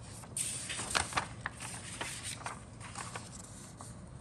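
Paper instruction sheet being flipped and unfolded, rustling and crinkling, with a couple of sharp crackles about a second in before it settles flat.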